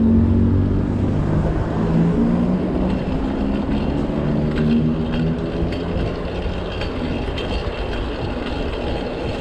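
Street traffic: a motor vehicle's engine running close by, its hum fading out over the first half, over a steady low traffic rumble.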